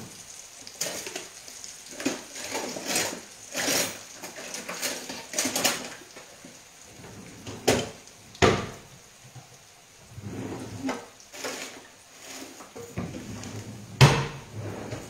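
Kitchen clatter of pots, dishes and utensils being handled: a string of separate knocks and clinks, the loudest a sharp knock about a second before the end. Oil sizzles faintly underneath in a frying pan of frappe.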